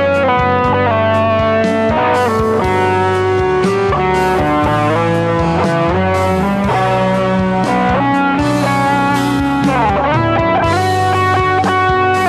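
Electric guitar music with sustained, effect-laden notes changing throughout, and one note bent down and back up about ten seconds in.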